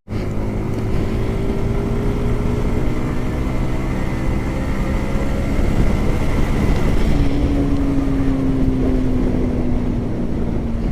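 Yamaha R15M's single-cylinder engine running steadily as the motorcycle rides along, heard as raw engine sound; about seven seconds in a stronger tone comes in and slowly falls in pitch.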